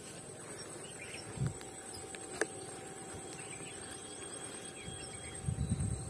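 Steady high-pitched insect buzz at a riverbank. A sharp click comes about two and a half seconds in, and low rumbling bumps come a little past one second and again near the end.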